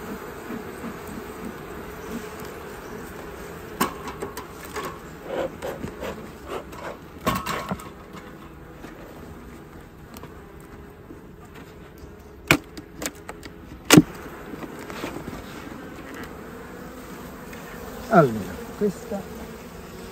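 Honeybees buzzing steadily at an open hive, with a few sharp knocks as the hive woodwork is handled, and a buzz falling in pitch near the end.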